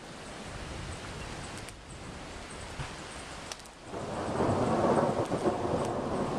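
Steady rain falling, with a roll of thunder that swells about four seconds in and keeps rumbling loudly.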